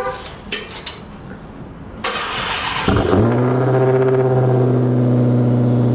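Dodge Challenger SRT Hellcat Redeye's supercharged 6.2-litre HEMI V8 being remote-started. About two seconds in the starter cranks for about a second, then the engine fires loudly and settles into a steady idle.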